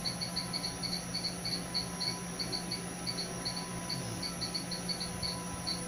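Insects chirping: a quick, irregular series of short, high chirps, several a second, over a faint steady hum.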